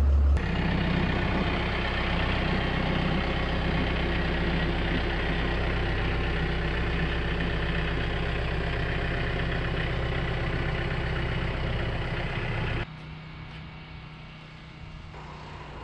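An engine idling steadily close by. About 13 s in the sound drops suddenly to a quieter, steady engine hum.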